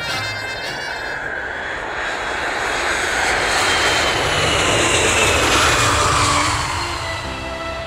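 Jet airliner (a twin-engine Boeing 777) passing low as it comes in to land: a rushing jet-engine noise that swells to its loudest about five seconds in, with a thin whine falling in pitch as it goes by, then easing off.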